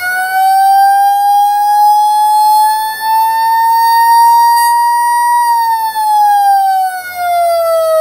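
Federal Signal Model 28 electromechanical siren wailing on the attack signal: its pitch climbs slowly to a peak about five and a half seconds in, then starts to wind down.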